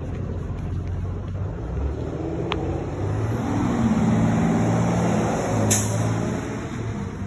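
2023 IC CE school bus's engine running as the bus approaches, growing louder about three seconds in and loudest around four to five seconds, with a short hiss of air from the air brakes near six seconds in.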